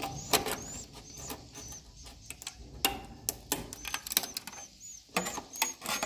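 Metal scraper blade prying and scraping a swiftlet nest off a metal sheet: irregular sharp scrapes and clicks. Short high chirps from swiftlets repeat about twice a second throughout.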